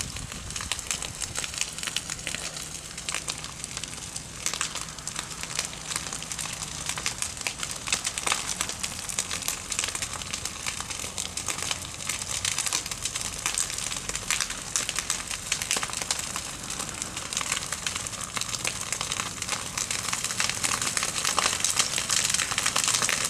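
Grass and brush fire crackling steadily, a dense irregular run of small snaps and pops as it burns through tall dry growth.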